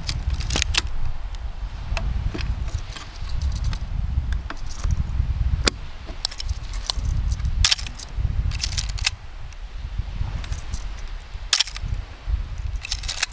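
Mechanical clicks from a Canon AE-1 35mm SLR being loaded with film: the back door snapped shut, then the film advance lever wound and the shutter fired to take up the leader. The clicks are sharp and separate, a second or two apart, some in quick pairs.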